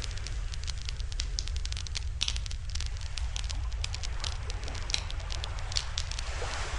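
Wood fire burning in a barbecue fire stand, crackling with many sharp, irregular pops over a steady low rumble.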